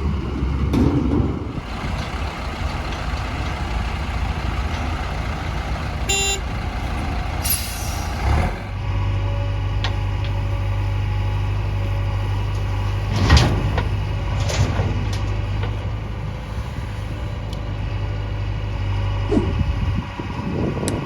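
Heavy diesel engines of a JCB 3DX backhoe loader and a Tata tipper truck running steadily while mud is loaded. There is a short hiss about eight seconds in, and a couple of sharp knocks later.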